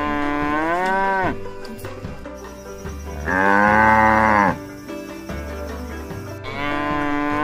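Cattle mooing: one long moo ends about a second in, a louder, higher one comes in the middle, and another begins near the end, each dropping in pitch as it fades. Background music plays under them.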